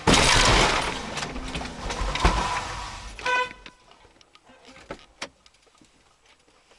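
Low-speed head-on collision between two Volkswagen Caddy vans: a sudden loud crunch and scraping that fades over a couple of seconds, with a sharp knock partway through. A short car horn toot follows a little over three seconds in.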